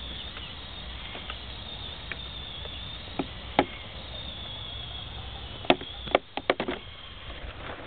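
Small electric motor of a radio-controlled truck giving a thin, wavering high whine as it creeps over dry dirt. Sharp clicks and knocks come twice in the middle and in a quick cluster near the end, over a low rumble of wind on the microphone.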